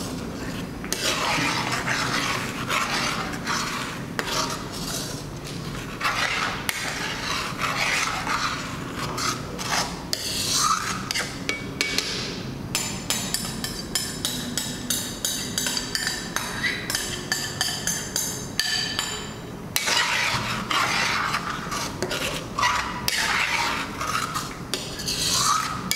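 Metal spoon scraping and stirring thick chili sambal paste around a wok in irregular rasping strokes. About halfway through, the stirring stops for several seconds and the simmering paste gives quick little pops, then the scraping resumes.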